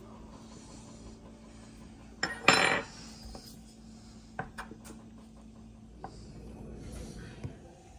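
Metal cutlery on a wooden board: a loud short clatter of a fork or utensil about two seconds in, then several light clicks and taps. A faint steady hum runs underneath.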